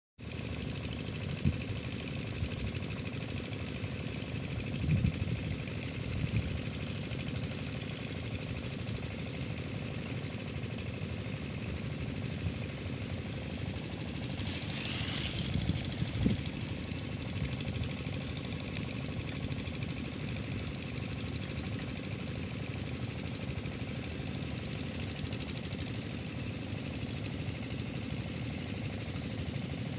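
Usha stationary engine running steadily, with a few louder thumps and a brief hiss about halfway through.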